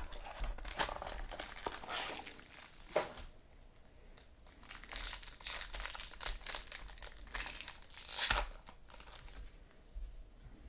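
Sports-card pack wrappers crinkling and tearing as packs are opened and handled, in irregular rustles with a brief lull, and a sharp loud crinkle near the end.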